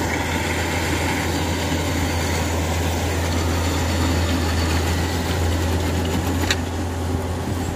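Kubota DC-105X combine harvester's diesel engine running steadily under load with the cutting and threshing gear at work as it harvests standing rice, a constant low hum under an even mechanical clatter.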